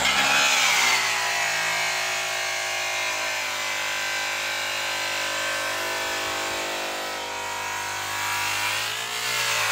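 Electric rotary polisher with an orange buffing pad running steadily against a sanded metal tank. Its pitch drops in the first second, then holds level, with a brief dip near the end.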